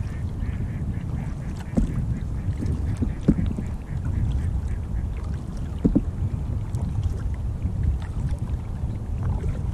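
Wind rumbling on the microphone and water moving against the hull of a folding kayak gliding across calm water, with a few brief calls about two, three and six seconds in.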